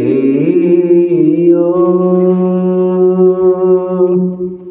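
A man chanting a devotional Punjabi verse of the morning nitnem. His pitch slides at first, then he holds one long steady note that fades away near the end.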